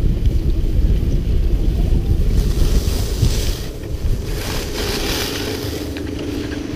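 Wind buffeting an action camera's microphone while skiing, with the skis hissing and scraping over the snow in two short stretches. A steady low hum joins in about five seconds in.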